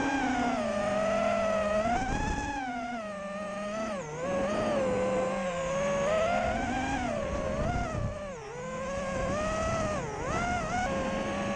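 FPV racing quadcopter's electric motors and propellers whining, the pitch rising and falling with the throttle and dipping sharply three times.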